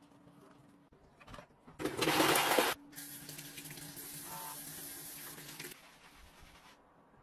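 A brief, loud rushing noise of about a second, followed by a tap running a steady stream of water over hands into a sink for about three seconds before it stops.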